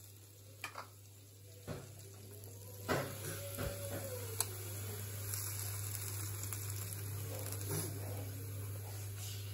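Freshly cooked waffles sizzling with a steady soft hiss in an opened electric waffle maker, after a few clicks from its lid being lifted, the loudest about three seconds in. A low steady electrical hum runs underneath.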